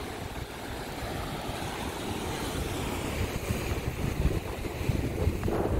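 Sea waves washing and breaking over shoreline rocks, with wind buffeting the microphone in uneven gusts.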